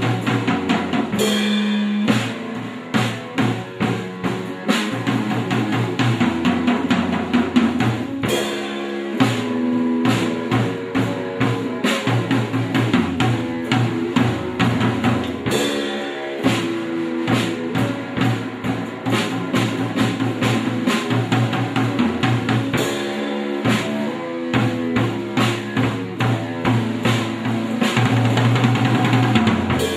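Instrumental band music: a drum kit with bass drum and snare playing a busy, regular beat under pitched instruments playing notes and riffs in the low and middle range.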